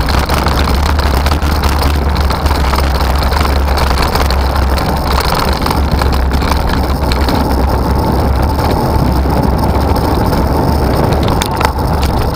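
Road and wind noise picked up by a bicycle-mounted camera's microphone while riding in city traffic: a steady low rumble under an even hiss, with passing vehicles mixed in.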